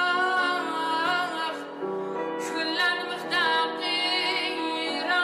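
Song with a singer holding long notes with vibrato over sustained instrumental backing.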